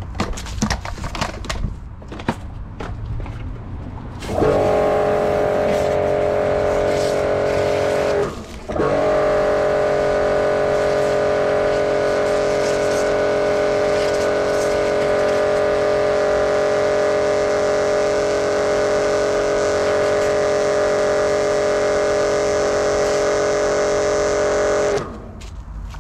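Bormann Pro BPW 5000 pressure washer: its motor and pump start about four seconds in and run with a steady hum and spray hiss. They cut out for a moment a few seconds later, then run again steadily until they stop shortly before the end. Before it starts there are scattered clicks and crackles.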